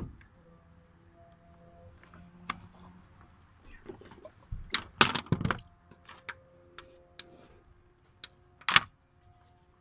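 Hand trigger spray bottle squirting cooking oil in short hissing bursts with trigger clicks: a single spurt at the start, a loud cluster of squirts about five seconds in and another spurt near the end.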